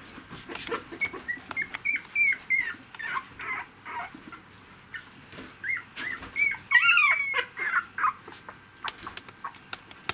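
Three-week-old poodle puppies whimpering and squeaking in short, high-pitched squeals that rise and fall, with a louder run of several squeals about two-thirds of the way through. Light clicks are scattered among them.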